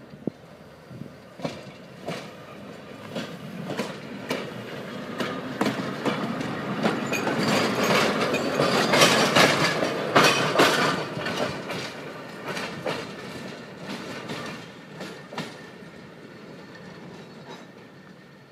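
A tram passing on metre-gauge track, its wheels clicking over the rail joints. It grows louder to a peak about halfway through, then fades away.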